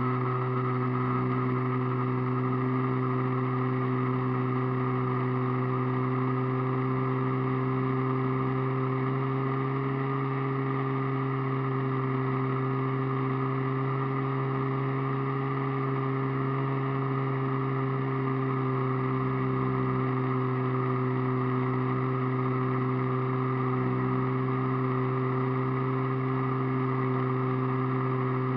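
Radio-controlled model airplane's motor and propeller, heard from a camera on board, droning at a steady, nearly constant pitch under cruise power with a hiss underneath.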